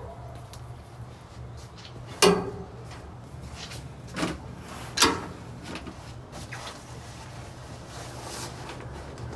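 A few short knocks and clunks of household things being handled, like a cupboard or drawer being shut, over a steady low hum. The loudest knock comes about two seconds in, with two more around four and five seconds.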